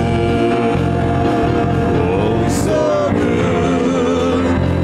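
Live worship band of keyboard, guitars, congas and drum kit playing a slow praise song, with singers holding wavering notes over it.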